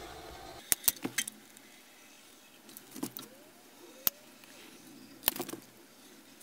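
Sharp metallic clicks and clacks of a hand caulking gun being squeezed, released and shifted while sealant is run around a sheet-metal vent cap, several close together early on and then single ones every second or so. A low steady hum cuts off about half a second in.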